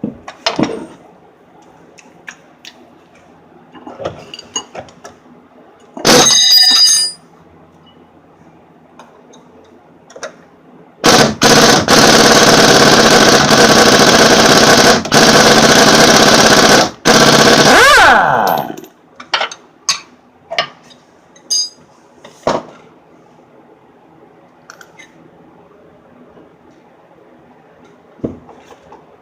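Impact wrench running on the sway bar end link nut: a short burst about six seconds in, then a long burst of about seven seconds with brief breaks, winding down in falling pitch as the nut spins off. Scattered clicks and knocks of tools and parts around it.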